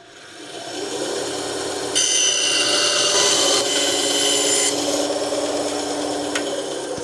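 Power drill running up and boring a small hole through a template piece, the cutting loudest for a few seconds in the middle.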